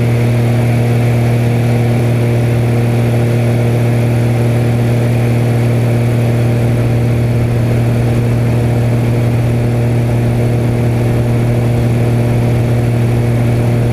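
Extra 300 aerobatic plane's engine and propeller droning steadily at constant power, one unchanging low note with overtones.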